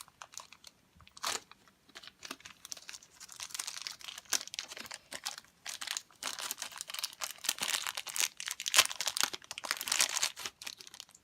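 Crinkly toy packaging being torn open and crumpled by hand: a dense crackling of many small sharp clicks that starts sparsely and builds up after a few seconds.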